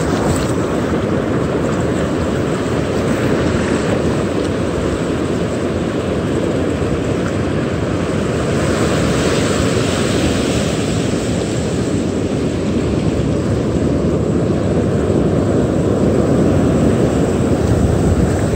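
Ocean surf breaking and washing up the beach, mixed with wind buffeting the microphone in a steady low roar.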